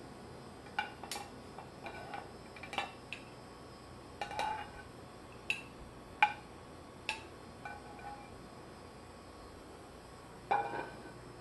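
Metal tongs and a frying pan clinking against each other and against a ceramic plate as cooked chicken strips are lifted off: about a dozen light, irregular clicks and taps, each ringing briefly.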